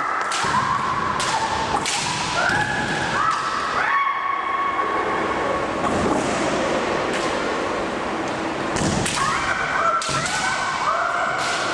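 Kendo fighters' kiai: long, held shouts, several overlapping, mixed with sharp cracks of bamboo shinai strikes and foot stamps on the wooden floor. The shouting and striking come in two flurries, at the start and again from about nine seconds in.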